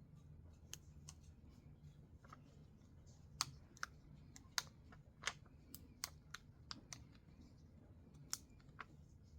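Faint, irregular small clicks and taps from paper and craft materials being handled, over a low steady hum.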